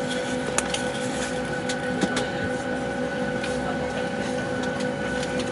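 Steady hum of an airliner cabin, with a few constant tones and scattered light clicks.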